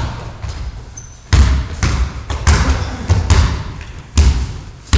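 Basketball dribbled on a gym floor: a run of sharp bounces starting about a second in, roughly one every three-quarters of a second, each echoing in the hall.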